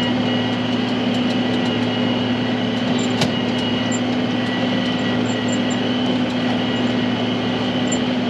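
Tractor and big square baler running steadily while baling, a constant mechanical hum with one sharp click about three seconds in.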